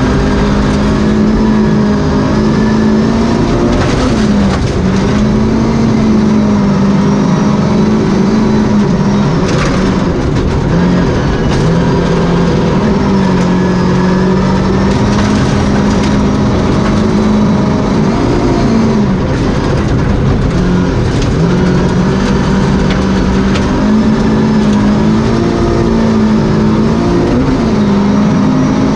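Volvo 240 Group H rally car's engine at full throttle, heard from inside the cabin, its note falling and climbing again several times at gear changes and lifts. Occasional sharp knocks come from the gravel road.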